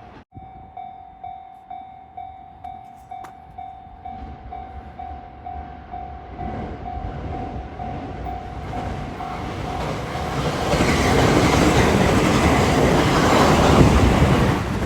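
Japanese level-crossing warning bell ringing in a steady, evenly pulsed electronic tone, about two strikes a second. About eight seconds in it gives way to a passing train, whose rumble and wheel noise build and are loudest near the end.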